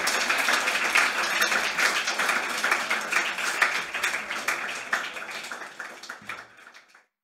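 A small audience clapping and applauding steadily, then fading away near the end and stopping.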